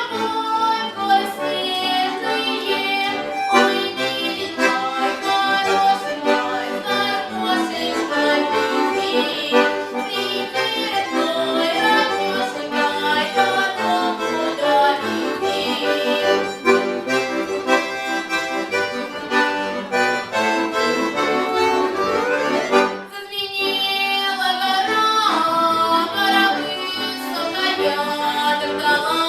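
Accordion playing an instrumental passage in Russian folk style: a melody over sustained chords. There is a short break about 23 seconds in before it carries on.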